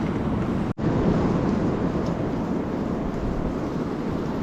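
Steady rushing noise of a fast mountain river's flow, mixed with wind buffeting the microphone, broken by a split-second dropout a little under a second in.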